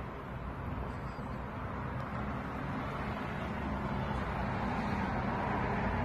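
Steady low outdoor background rumble, with no distinct calls or knocks standing out.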